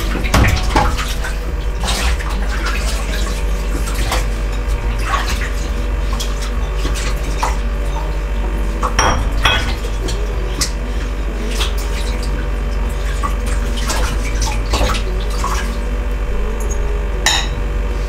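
Ceramic bowls and dishes clinking and knocking against each other and the stainless steel sink as they are washed by hand with a sponge, with soapy water sloshing. A steady low hum runs underneath.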